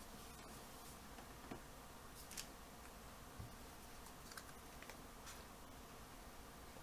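Near silence with a few faint, scattered clicks and taps of cardstock pieces being handled and pressed together.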